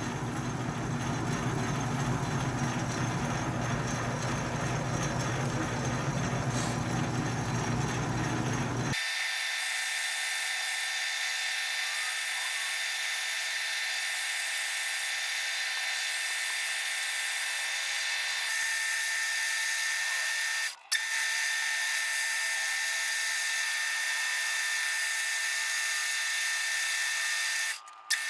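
Atlas metal lathe running steadily while drilling into brass stock. About nine seconds in, the sound changes abruptly to a thin, steady high whine with the low hum gone, and it drops out briefly twice.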